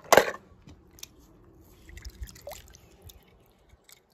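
Toy cars being handled: two brief, loud crunchy noises at the very start, then faint scattered clicks and scrapes with a few soft low thumps about two seconds in.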